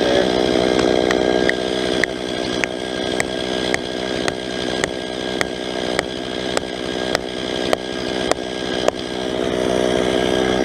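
Plastic felling wedges being driven into the back cut of a large oak with about fourteen sharp hammer blows, a little under two a second. Under them, the Stihl 391 chainsaw set down and running steadily at idle.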